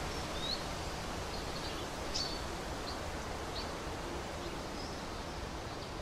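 Outdoor forest ambience: a steady background hiss with a few faint, brief bird chirps.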